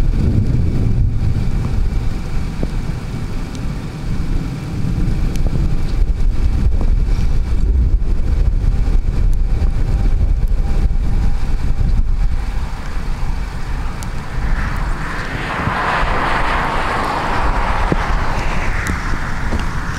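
Wind buffeting the microphone in gusts, a heavy low rumble. About fifteen seconds in, a broader rushing sound swells up and fades away over about four seconds.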